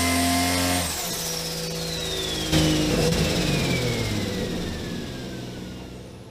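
Turbocharged Toyota 2JZ straight-six on an engine dyno held at high rpm, then about a second in the throttle closes and the engine note drops away while the turbo's high whine falls steadily in pitch as it spins down. A sudden louder burst comes about two and a half seconds in, and the sound then fades out.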